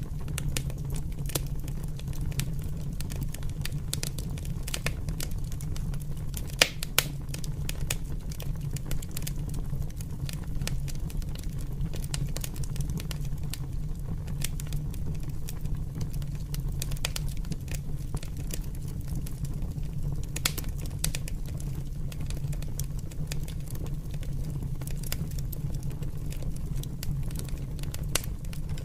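Fire crackling, with many quick sharp pops over a steady low rumble of flames; two louder pops about seven seconds in.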